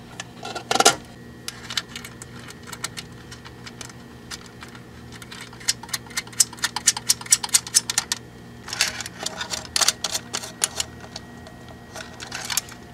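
Hook-up wires being handled and routed inside a metal amplifier chassis: irregular small clicks, taps and rustles of wire and fingers against the metal, in bursts about half a second in and again through the middle.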